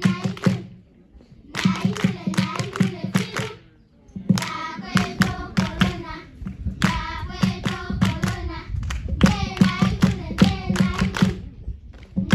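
Singing with rhythmic hand clapping, in phrases broken by two short pauses.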